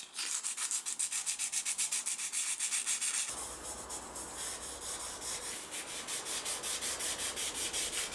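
Fine sandpaper rubbed back and forth by hand over the copper of a printed circuit board, about four strokes a second. A few seconds in it gives way to a softer rubbing of a tissue wiping the bare copper, with a low hum underneath.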